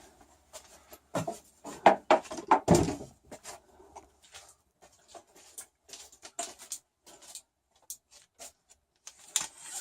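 Things being handled and put away: a few loud knocks and thumps in the first three seconds, then lighter clicks and rustling.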